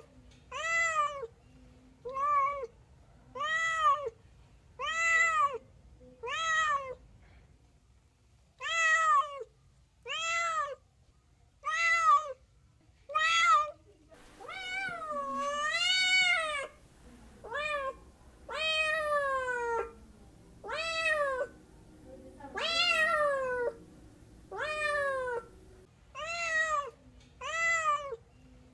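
Domestic cat meowing over and over. For the first half there are short meows about one a second, each rising and falling in pitch. After that come longer, drawn-out meows whose pitch wavers up and down or slides downward.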